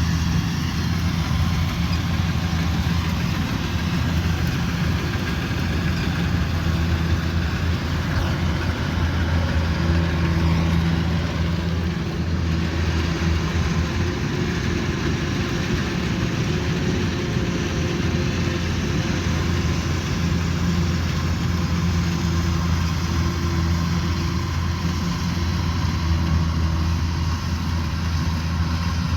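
Kubota rice combine harvester's diesel engine running steadily under load, a constant low drone with mechanical noise over it.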